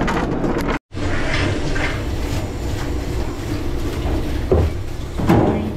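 Tap water running into a stainless-steel dish sink while something is scrubbed under it, with a couple of clanks about four and a half and five seconds in, over a steady low hum. Before a brief dropout near the start, a bus cart rolls through the dining room.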